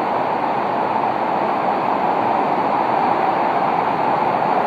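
Hurricane-force wind and driving rain: a steady, loud rushing noise with no let-up.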